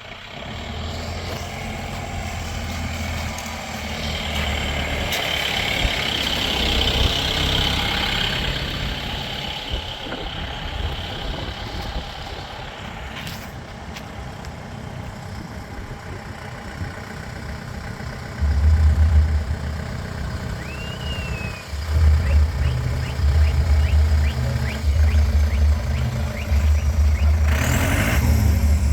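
Mahindra jeep's diesel engine running while driving off-road. From about two-thirds of the way in come repeated loud, low rumbling pulses, each about a second long.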